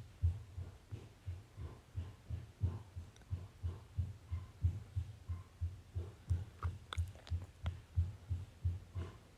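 A steady low thumping beat, about three thumps a second, with a few faint clicks about seven seconds in. The beat stops abruptly at the end.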